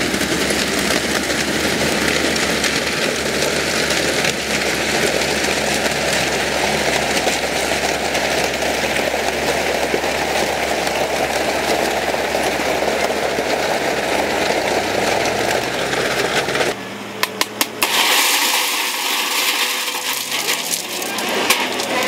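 Heavy earthmoving machinery working in rock and gravel: an engine rumbles under a dense, continuous clatter and scrape of stones. About 17 seconds in the sound changes abruptly, with a few sharp knocks and then a brighter rattling of rock.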